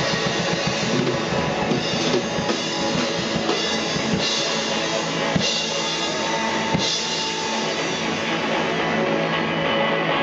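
Live rock band playing, with the drum kit to the fore: three loud cymbal crashes, each with a kick-drum hit, come about four, five and a half and seven seconds in.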